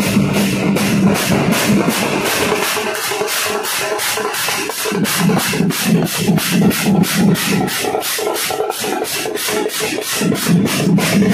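Procession band of large bass drums and big hand cymbals playing a fast, steady beat: the cymbals clash about four times a second over the bass drums' pulse.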